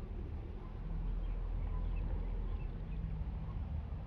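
Low, uneven rumble on the microphone, with a few faint, short bird chirps above it; no firecracker goes off.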